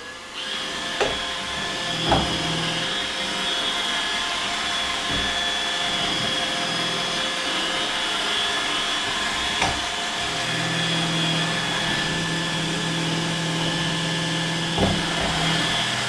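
iRobot Roomba 880 robot vacuum cleaning a hardwood floor, its vacuum motor and brushes running steadily with a high whine. There are a few short knocks about two, ten and fifteen seconds in.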